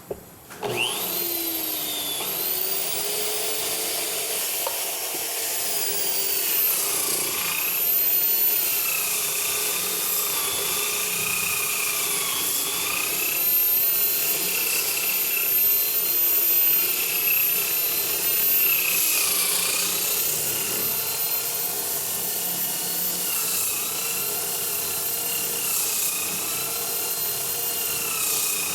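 Electric drill converted into a sander, fitted with coarse sandpaper, starting up about a second in and then running while sanding. Its motor whine dips in pitch and recovers several times as the load comes and goes, over a steady rubbing sound.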